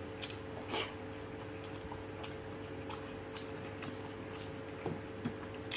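A man chewing a mouthful of rice with his mouth closed: soft, faint mouth clicks and wet chewing sounds, with a faint steady hum underneath.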